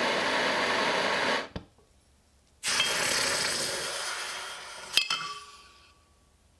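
A steady gas-torch hiss cuts off after about a second and a half. Then hot, rusty iron sizzles as it is quenched in a glass beaker of liquid, and the sizzle fades after the iron clinks against the glass about five seconds in.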